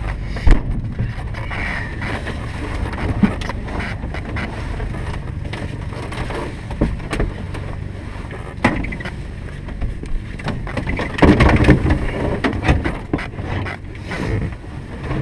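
Clicks and knocks of seat-belt buckles and harness straps being handled in a Cessna 152 cockpit, the sharpest click about half a second in and a cluster of knocks around eleven seconds in, over a steady low rumble.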